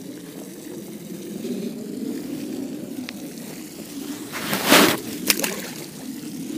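Water sloshing, with a loud splash about four and a half seconds in and a shorter splash a moment later.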